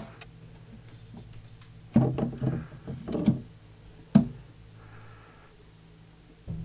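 A run of knocks and bumps about two seconds in, a single sharp knock about four seconds in, and one more near the end: handling noise around a gecko tank.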